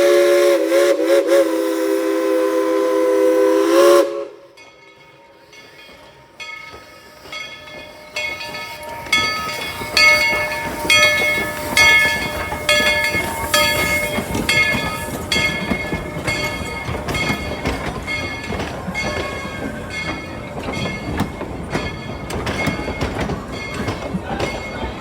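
Steam locomotive No. 190's chime whistle blowing a long multi-note chord, wavering briefly about a second in and cutting off after about four seconds. After a short lull the locomotive's bell rings steadily, about once a second, over a growing rumble from the locomotive.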